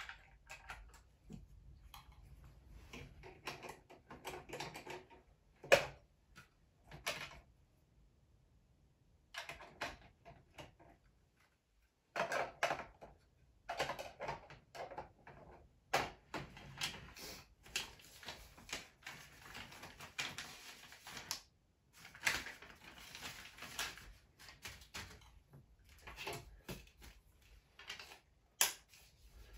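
Hard plastic Playmobil train parts clicking and clattering as they are handled and fitted together, in irregular taps with short pauses and one sharper knock about six seconds in.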